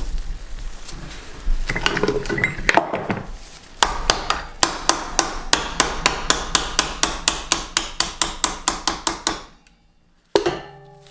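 Hammer driving a punch against the brake pad retaining pin of a motorcycle front brake caliper held in a vise, knocking the pin out. There are a few scattered knocks, then a steady run of sharp metal taps at about four a second. After a brief pause comes one last, harder strike that rings.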